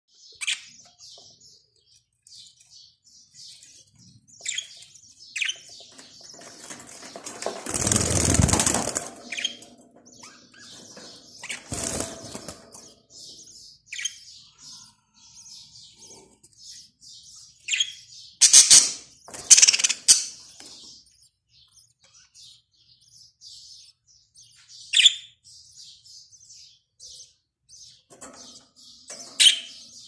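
Budgerigars chirping and chattering in many quick, short calls, with a few louder rustling bursts, the longest about eight seconds in.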